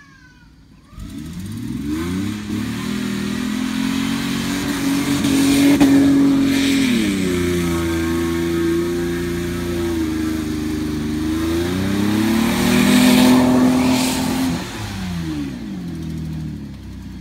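Ford Mustang's engine revving hard as the car spins donuts on grass, its rear wheels spinning. The revs climb about a second in and hold high, ease off around the middle, climb again, and fall away near the end.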